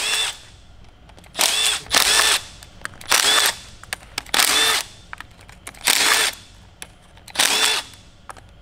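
Cordless drill-driver spinning out valve cover bolts in seven short runs of under a second each, each one rising in pitch and then winding down, with small clicks between runs.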